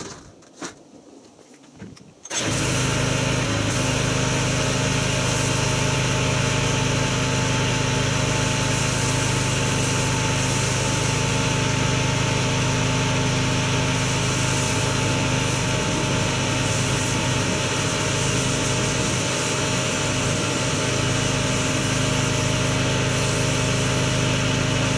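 Pressure washer switched on about two seconds in, then running steadily with a constant hum as it sprays rinse water over a soaped car.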